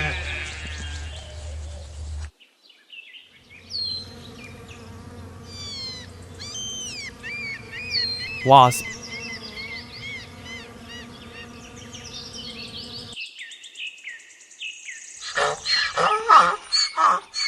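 A wasp buzzing steadily, with small birds chirping in the background. Near the end a loud, rough animal call takes over.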